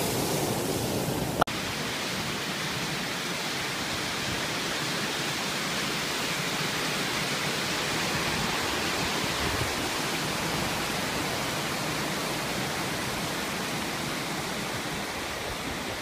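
Steady rush of stream water running over rock toward the top of a waterfall, an even hiss, with a short click about a second and a half in where the recording cuts.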